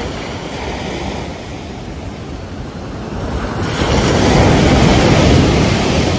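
Ocean surf washing on a beach, a steady rush of water; about halfway through a wave breaks and the rush grows to its loudest, then begins to ease off near the end.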